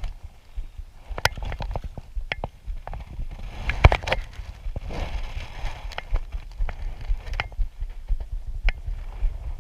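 Irregular knocks and clicks of gear being handled on a kayak over a steady low rumble, with the loudest knock about four seconds in.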